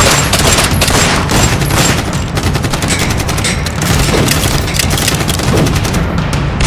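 Dense, rapid gunfire from automatic rifles in a firefight, many shots a second in close succession.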